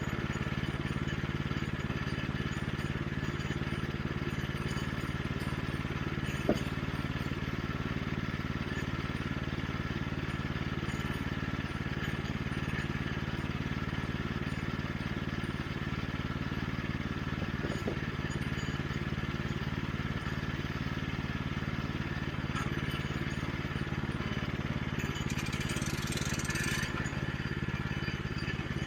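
Small gasoline engine of a Woodland Mills HM122 portable bandsaw mill running steadily, with one sharp click about six and a half seconds in.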